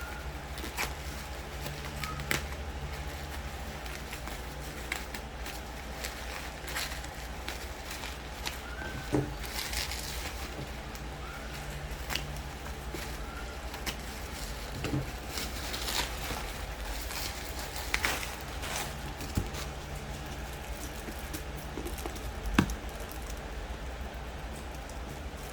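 Book packaging being handled and opened: irregular clicks, crinkles and short rustles, one sharper click about 22 seconds in, over a steady low hum.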